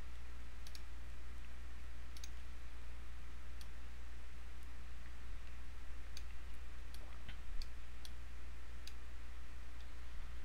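A handful of faint computer mouse clicks, spaced irregularly a second or more apart, over a steady low electrical hum.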